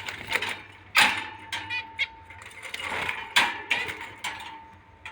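Many small cage birds chirping and chattering together, with two louder sudden sounds, one about a second in and one about three and a half seconds in.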